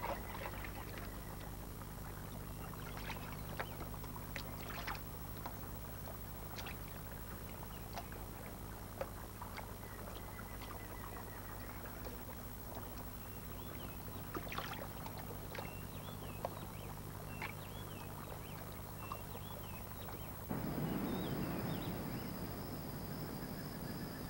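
Small splashes and water lapping as fish strike at figs floating on a river, with a few short chirping calls, over a low steady hum. Near the end it changes to forest sound with a steady high insect drone.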